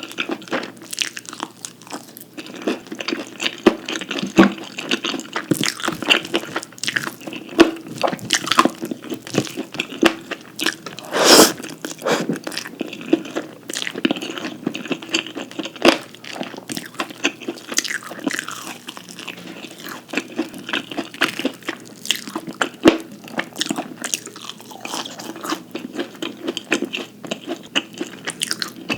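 Close-miked eating: crunchy bites and chewing, a dense run of irregular crackling crunches, with one louder, longer crunch about eleven seconds in.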